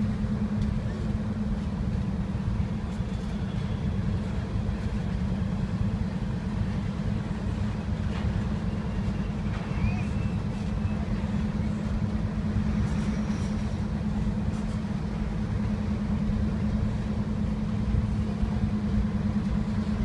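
Double-stack container freight train rolling past with a Norfolk Southern diesel locomotive among its cars: a steady low rumble with an engine drone held at one pitch.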